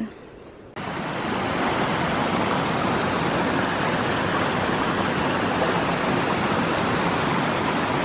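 A small forest stream tumbling over a rocky cascade: a steady rush of water that starts abruptly about a second in.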